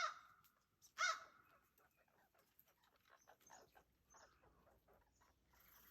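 Blue jay giving two harsh calls, one at the start and one about a second in. After that there is only faint rustling and a few faint high chirps.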